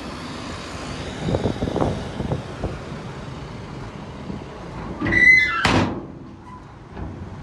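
Heavy construction machinery at work, with a run of dull knocks, then a short metallic squeal ending in a loud clang about five seconds in.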